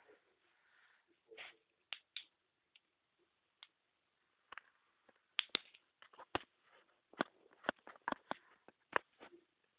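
A series of irregular sharp knocks and clicks. They are sparse at first, then come thicker and louder from about halfway through.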